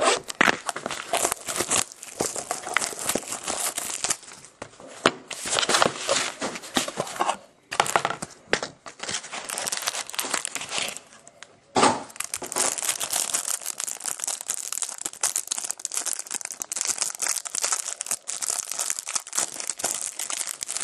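Crinkling and tearing of wrapping as a sealed trading-card box is opened by hand, with irregular rustling and handling of the box and its cards. There are short pauses, and a sharper knock about twelve seconds in.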